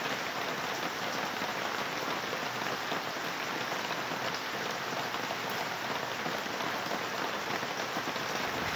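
Heavy rain falling steadily on garden plants and the ground, an even hiss of downpour.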